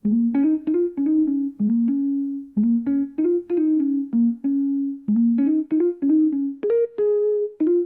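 Background music: a keyboard plays a single-line melody, notes struck one at a time at an easy, steady pace, starting suddenly after a silence.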